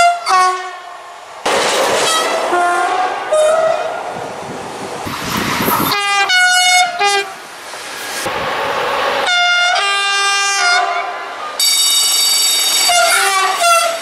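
Train horns sounding a string of about five blasts from different trains, some switching between two notes, with the rolling noise of passing trains between them.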